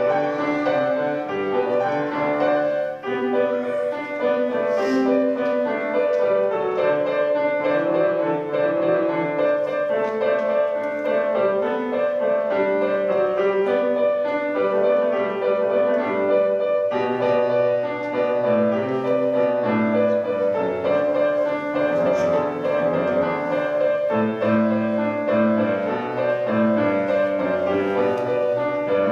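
Grand piano played four hands: two young pianists sharing one keyboard in a continuous, joyful-sounding duet with dense, steady notes.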